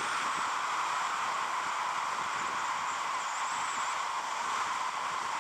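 Steady rush of wind noise on a riding motorcycle's camera microphone at road speed, an even hiss that masks the engine.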